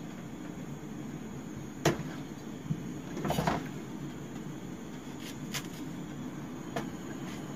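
Kitchen handling knocks while bananas are sliced with a knife: a sharp knock about two seconds in, a cluster of clatters around three and a half seconds, and a few lighter taps later. A steady low hum runs underneath.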